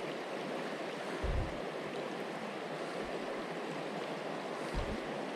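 Creek water running steadily over the streambed, an even rushing. Two brief dull low bumps, about a second in and near the end.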